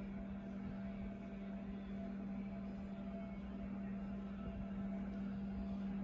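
Steady machine hum from a running motor, one even tone with a low rumble beneath it.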